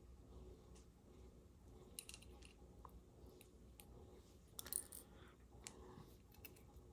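Faint, scattered small clicks and taps of tiny screws and a precision screwdriver being handled on a phone's frame, with a brief cluster of sharper clicks a little past the middle; otherwise near silence.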